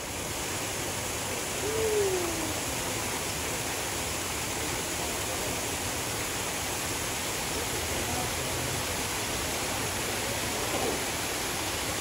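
Steady rush of falling water, like a waterfall pouring into a pool, with one short falling tone about two seconds in.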